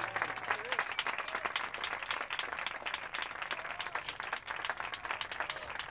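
A small crowd clapping and applauding, a dense patter of hand claps.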